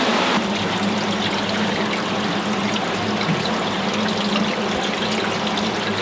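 Steady rush of water from a waterfall flowing through a cave.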